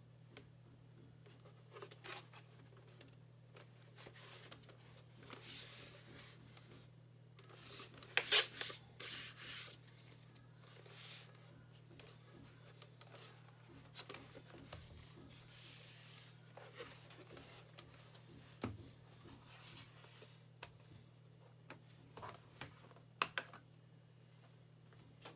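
Handling noise from a split keyboard being worked on by hand: irregular rubbing and scraping of plastic and fabric, with scattered sharp clicks. The loudest scrapes come about a third of the way in, and a sharp click comes near the end.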